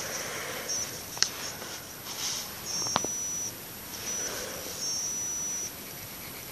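Pencil scratching on lined notebook paper in short strokes, with a few light clicks and a thin high tone that comes and goes.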